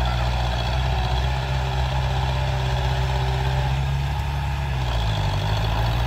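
Small crawler bulldozer's diesel engine running steadily at close range, with a deep, even note that dips and shifts briefly about five seconds in.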